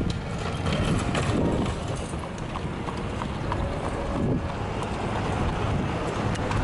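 A horse's hooves clip-clopping on a paved road as it pulls an Amish horse-drawn buggy past, a run of short, separate hoof strikes.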